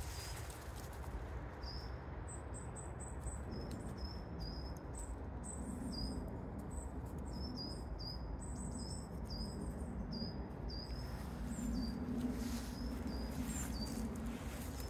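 Small birds chirping in woodland: many short, high calls repeated irregularly at two pitches, over a steady low background rumble.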